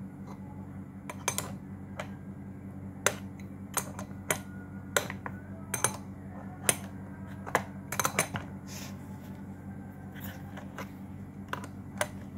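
Irregular sharp metallic clicks and taps of an adjustable wrench and fitting handled while an M22 quick-release coupler is screwed tight onto a jet cleaner's threaded output, over a steady low hum.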